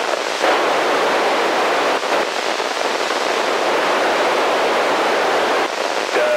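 Steady hiss of FM static from a handheld radio's speaker, squelch open on the SO-50 amateur satellite downlink while no station is transmitting.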